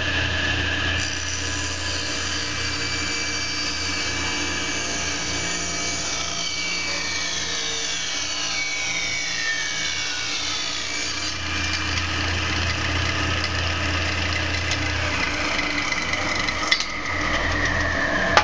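Table saw's 10-inch blade running, with its motor underneath, while a board is fed along the fence and ripped through from about a second in until about eleven seconds in; after that the blade spins free. Near the end a click, and the motor's pitch begins to fall as the blade winds down.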